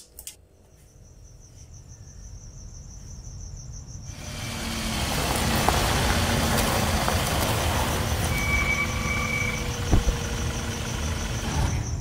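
A film soundtrack of crickets chirping steadily at night while an SUV's engine and tyres come up loud about four seconds in and keep running. A short high squeal and a thump come near the end.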